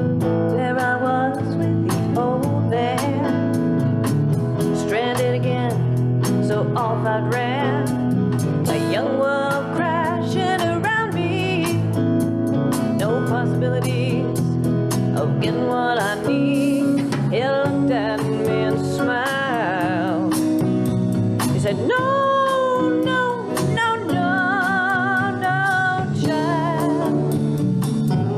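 Live band playing a cover ballad: a woman singing lead over strummed acoustic guitar, electric guitar, mandolin and drums.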